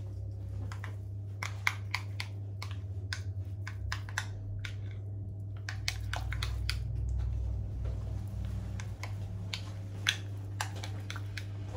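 A utensil stirring a sauce in a small bowl, clicking and tapping lightly and irregularly against the bowl's sides, over a steady low hum.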